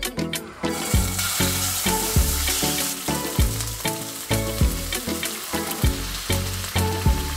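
Diced raw chicken fillet sizzling in hot oil in a frying pan as the pieces are dropped in, the sizzle setting in about a second in. Background music with a steady beat runs underneath.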